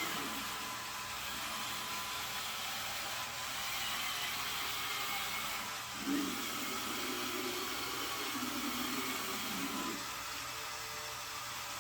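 LEGO Technic electric motors and gears whirring steadily as the mower model drives its rear wheels. A lower, fuller note joins in about six seconds in and drops away near ten seconds.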